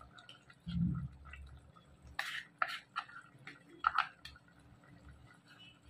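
Wet ground masala being scraped from a small dish into an aluminium cooking pot: a dull thump about a second in, then a few sharp clicks and clinks of the dish against the pot.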